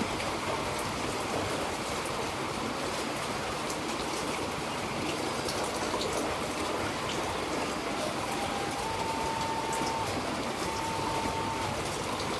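Steady, even water noise throughout. Late on, a few faint held tones step up and down in pitch like a slow melody.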